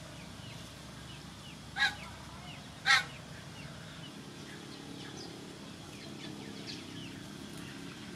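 Two short, loud animal calls about a second apart, over faint high chirping and steady background noise.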